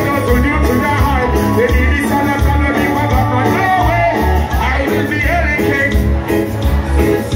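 Live reggae band playing loudly through a stage sound system: a heavy pulsing bass line and drums with guitar and keyboards, and a male voice singing over it.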